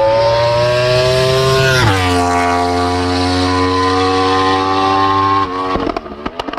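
A vehicle engine revving up with its pitch climbing. About two seconds in the pitch drops sharply, like a gear change, then holds nearly steady. About five and a half seconds in it cuts off, leaving a few sharp pops as it dies away.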